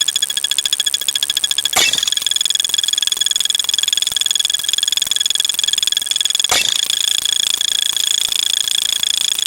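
A rapid stream of high-pitched electronic beeps, repeating too fast to count so they nearly merge into a buzz, with a click and a slight change in the tone about two seconds in and again about six and a half seconds in.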